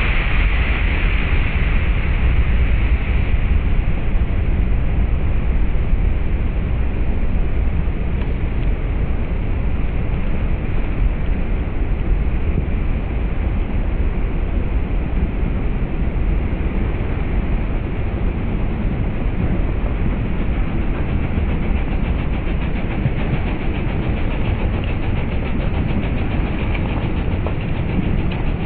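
Heavy ocean surf breaking on a rocky shore and breakwater: a continuous rumbling roar, with a hissing wave break at the start that fades over the first few seconds.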